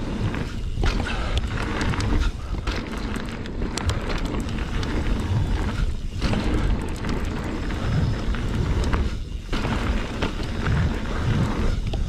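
Wind buffeting the microphone and mountain bike tyres rolling fast over packed dirt on a jump line, with a few brief clatters. The rush dips briefly twice, about six and nine seconds in.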